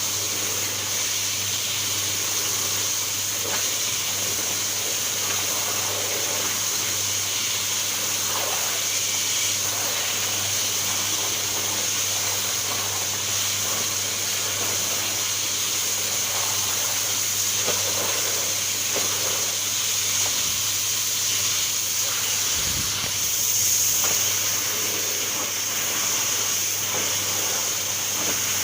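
Washing machine running with water: a steady rushing hiss over a constant low hum, with a few faint knocks.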